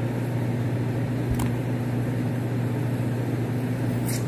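A steady low hum, like a running appliance or fan, with two short clicks of a spoon against a bowl, about a second and a half in and near the end.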